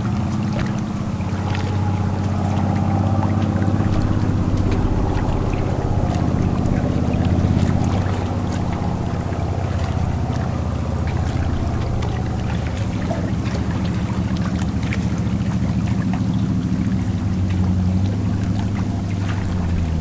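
A boat engine running steadily with a low hum, swelling a little about seven seconds in, with faint scattered ticks over it.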